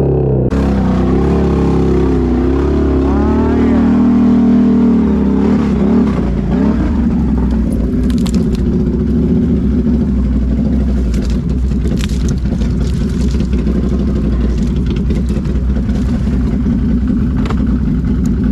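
Can-Am Renegade ATV engine revving hard through a mud hole, its pitch rising and falling, then running at a steady pitch under load. Scattered sharp snaps and clicks from brush and branches striking the quad come in the middle stretch.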